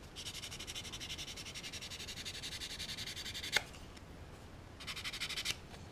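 Sandpaper or a sanding stick rubbed quickly back and forth over a small plastic model-kit part, in rapid even strokes. A single click comes partway through, then a shorter burst of sanding near the end.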